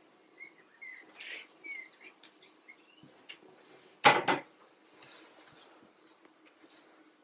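Crickets chirping in a steady pulsed trill, with a few short higher chirps in the first two seconds. About four seconds in, a single loud clatter as a ceramic plate is picked up from the grill's side table.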